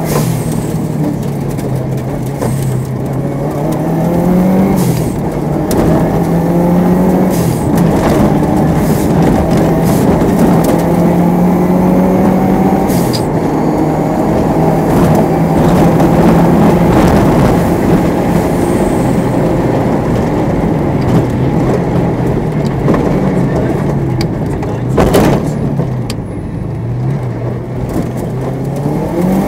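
Cabin sound of a Subaru Impreza WRX STi rally car's turbocharged EJ25 flat-four driven hard. The engine note climbs and drops back with each gear change, with scattered knocks and clatter from the loose surface and one sharp bang near the end.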